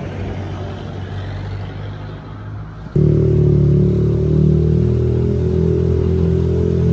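A motor vehicle running on the road, then a sudden cut about three seconds in to a louder, steady sound with several held low tones.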